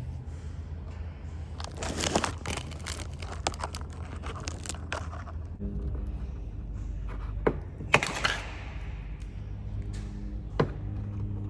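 Hands pulling an old piece out of a car's jack holder: irregular scraping, crinkling and tearing, with a few sharp clicks or knocks in the second half.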